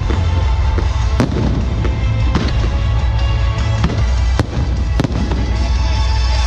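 Aerial fireworks bursting overhead, a dense crackle of exploding stars with about five sharper bangs spread through it.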